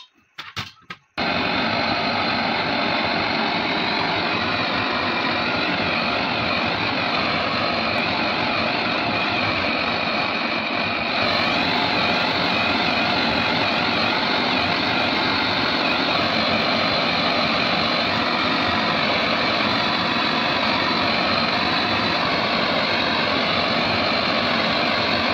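Brass pressure blowtorch burning with a steady hissing rush of flame, starting abruptly about a second in after a few short clicks and growing slightly louder partway through, as it heats the steel folding stock.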